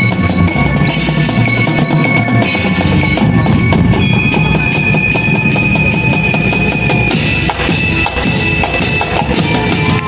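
Marching band playing loudly: drumline and front-ensemble mallet percussion such as glockenspiel and marimba over held notes, changing texture about seven seconds in.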